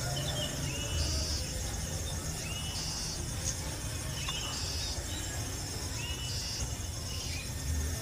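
A bird repeats a short, hooked whistled call about every one and a half seconds, with a short high buzz between the calls, over outdoor insect noise.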